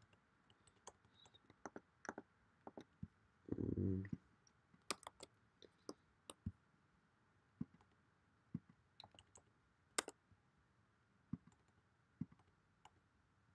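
Faint, sparse computer keyboard and mouse clicks, irregular and spaced out, as lines of code are copied and pasted; a short low murmur about four seconds in.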